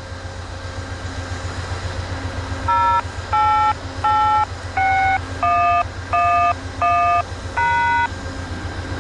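A string of eight touch-tone (DTMF) beeps over a railway radio, each a two-note tone about half a second long, starting about three seconds in. They are the tone code that activates the radio-controlled level crossing at location 8861. A steady low rumble from the departing train's diesel locomotive runs underneath.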